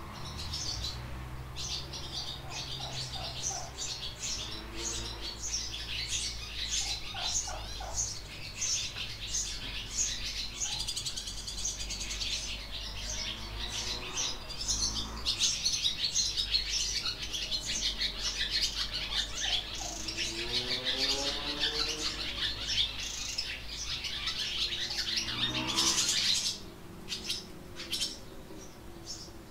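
Small birds chirping and twittering in quick overlapping notes throughout, the mixed chatter of barn-dwelling birds such as barn swallows and house sparrows in a barn. Lower calls with several pitches break in now and then. A brief loud rush of noise comes near the end, and the chorus is quieter after it.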